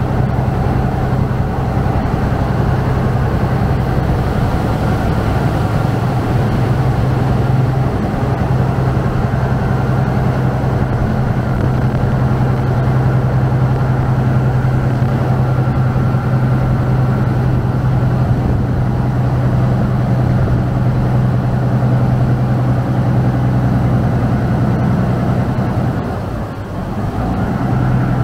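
Saen Saep canal express boat's diesel engine running hard at a steady cruising speed, a loud low drone, with water rushing and churning in the wake along the hull. Near the end the engine briefly eases off, then picks up again.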